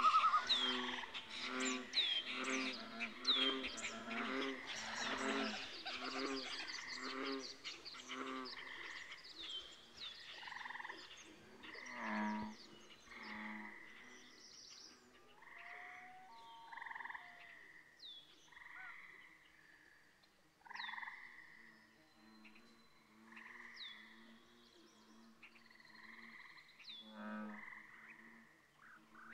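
Frogs calling in a chorus: short low croaks repeat about twice a second, loudest during the first several seconds and then thinning out, with high chirps that fall in pitch repeating over them.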